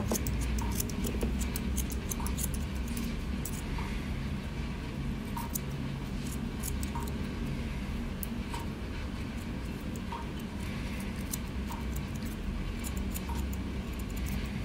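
Kerry TP-55S mini grooming scissors snipping the fur between a dog's paw pads: a long run of light, quick metallic clicks at an uneven pace.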